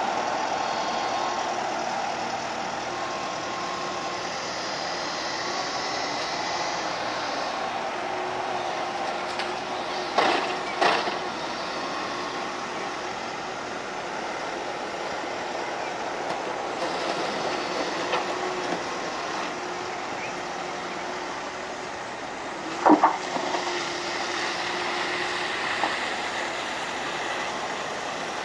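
Wacker Neuson EW100 wheeled excavator running steadily under load as it works mud with its tiltrotator bucket. Two sharp knocks come about ten and eleven seconds in, and a louder double knock about twenty-three seconds in.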